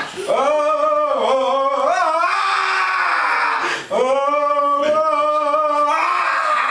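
A man singing unaccompanied, holding long drawn-out notes that slide up and down in pitch, with a short break for breath about four seconds in.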